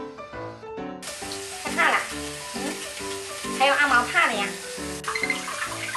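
A frightened cat meowing a few times during its bath, over a steady hiss of running water that starts about a second in. Background music plays throughout.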